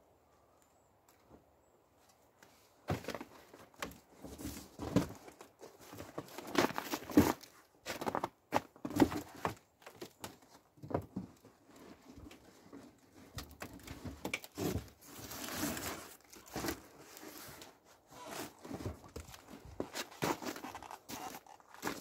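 Shopping being handled in a car boot: bags and a cardboard box rustling, crinkling and knocking against the boot floor in irregular bursts, then footsteps in snow near the end.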